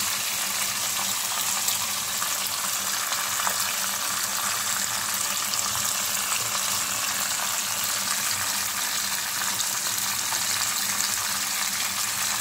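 Hot oil sizzling steadily around a whole spice-rubbed fish shallow-frying in a nonstick pan, with scattered small crackles.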